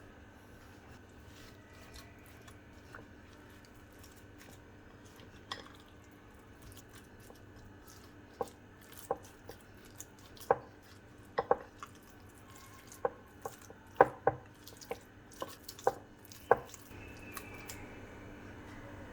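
Kitchen prep taps: a series of sharp, irregularly spaced knocks of utensils, of the kind a knife makes on a chopping board. They come thickest in the middle of the stretch, over a faint steady hum.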